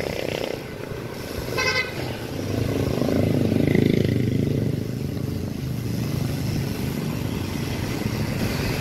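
Wind rumbling on a phone microphone, with road noise, while riding a bicycle along a city street. It swells about three to four seconds in. A short horn toot sounds near the two-second mark.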